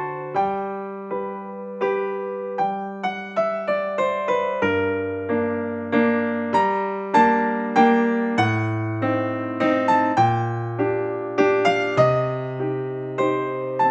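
Background music: a gentle electric piano melody over sustained bass notes.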